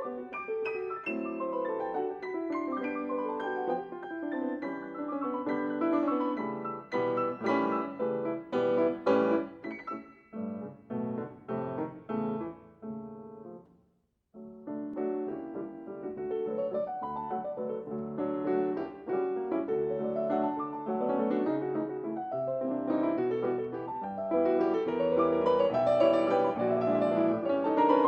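Solo piano music playing flowing, cascading runs of notes, breaking off briefly about halfway through before starting again.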